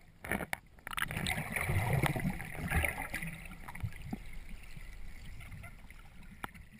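Sea water sloshing and gurgling around a camera held at or just under the surface. A few sharp clicks come in the first second, and the water noise swells from about a second in before slowly fading.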